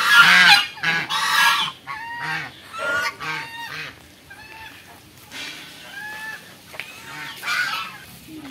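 A flock of white domestic geese honking and calling over and over. Loud calls come in the first second or so, quieter scattered calls follow, and another loud call comes near the end.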